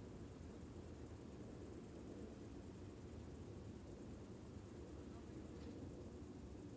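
Crickets trilling in a steady, high, rapidly pulsing chorus, with a faint low background rumble beneath.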